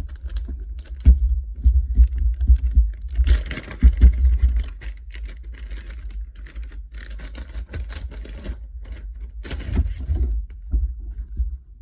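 Packs of soft plastic fishing lures being handled: scattered light clicks and knocks, with three longer bursts of rustling packaging, about three seconds in, around seven to eight seconds, and near ten seconds.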